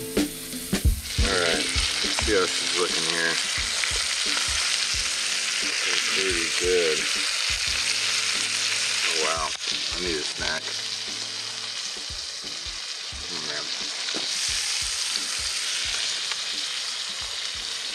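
Butter-seasoned trout fillets sizzling steadily in a hot skillet, with scattered light knocks and scrapes of a fork against the pan.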